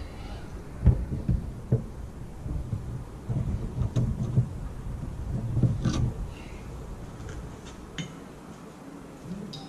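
Low knocks and light clicks as a car's windscreen wiper arm is handled and pressed onto its spindle, over a low rumble with several low thumps.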